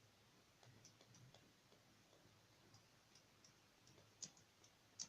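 Near silence with faint scattered small clicks and ticks, and two sharper clicks about four seconds in and near the end.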